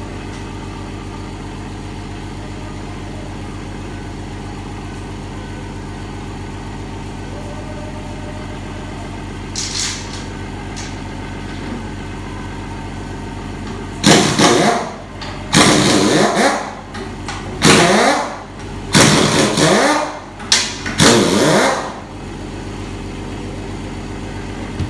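A steady mechanical drone, with five or six short, loud bursts of a pneumatic impact wrench in quick succession from about two-thirds of the way through, as bolts are run off.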